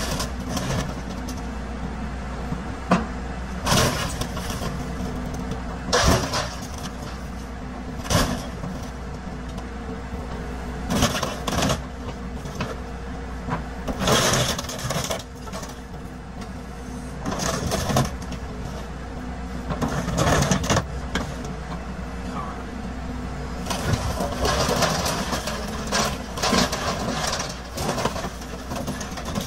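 Caterpillar excavator's diesel engine running steadily as its bucket crushes a pickup truck, with irregular loud crunches and bangs of buckling sheet metal every second or few.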